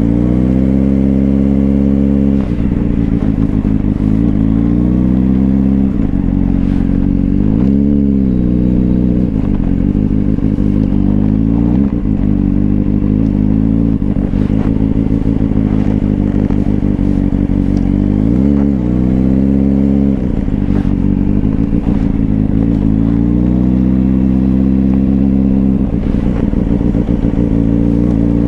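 Suzuki GSR400's inline-four engine through a twin Yoshimura exhaust, running at low speed. The revs swell up and drop back again and again, several rises a few seconds apart, as the throttle is rolled on and off through tight low-speed turns.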